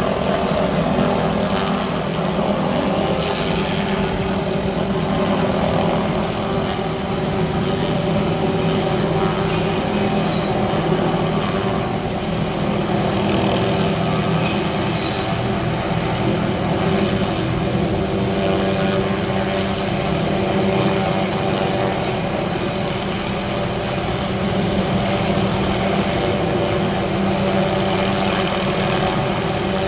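Helicopter hovering with an aerial tree-trimming saw, a row of circular blades on a long boom, hanging below it. Engine and rotor run steadily with a constant hum of several steady tones.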